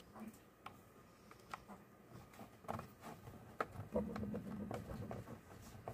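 Scattered light clicks and taps of plastic parts being handled and pressed together as a Raspberry Pi case module is seated into a plastic frame. A denser stretch of handling noise comes about four seconds in.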